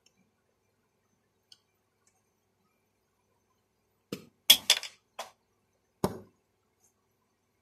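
Five sharp clinks and knocks of kitchen containers being handled on a table, starting about four seconds in, the loudest about halfway through.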